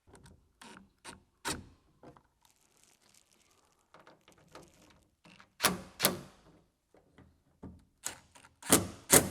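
Scattered clicks and knocks of hands and tools working a speaker into a truck door's sheet metal, with a louder pair of knocks about halfway through and another near the end.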